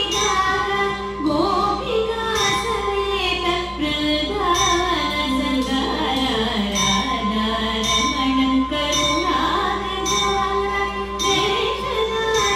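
Carnatic thillana music for the dance: a woman singing, her melody gliding up and down over a steady drone, with occasional light percussive strikes.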